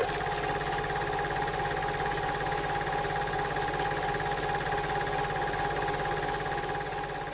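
Steady mechanical hum of a running machine, with a rapid low throb, a few steady tones and a hiss, easing off slightly near the end.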